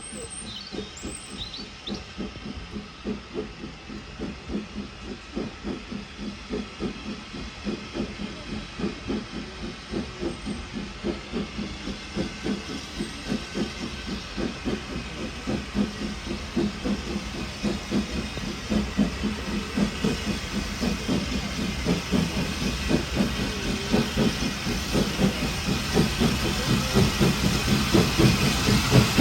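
A locomotive approaching under power, its exhaust beating in a fast, even rhythm over a steady low drone, growing steadily louder.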